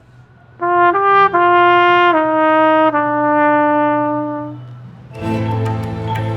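Solo trumpet playing a short phrase of about five notes, rising once and then stepping down to a long held note that fades away, over a low steady drone. About five seconds in, fuller ensemble music comes in.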